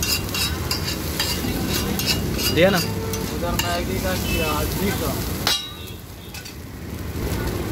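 Metal spatula scraping and tapping on a large flat iron tawa as scrambled egg (egg bhurji) sizzles on it. The strokes end with a sharp clack about five and a half seconds in, leaving quieter sizzling.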